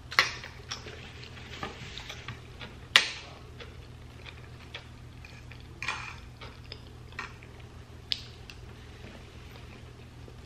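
Metal fork clinking and scraping on a dinner plate in a series of sharp, irregular clicks, the loudest about three seconds in.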